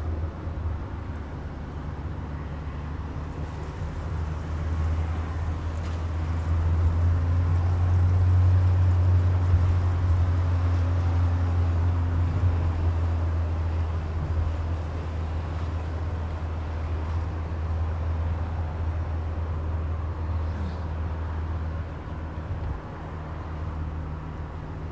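Driving noise of a car heard from inside the cabin: a steady low engine and road drone that swells for a few seconds around the middle.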